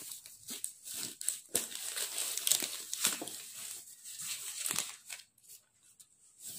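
Plastic courier bag crinkling and rustling as a cardboard box is pulled out of it and the bag is handled, in irregular crackles that die away about five seconds in.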